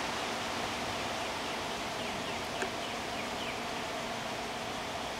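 Steady outdoor background hiss, with a few faint high chirps and one small click about two and a half seconds in.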